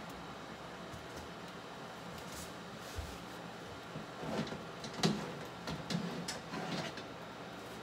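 Metal oven tray and wire rack being pulled out of a countertop toaster oven, scraping and clattering for about three seconds with a sharp clack about five seconds in, over a faint steady hum.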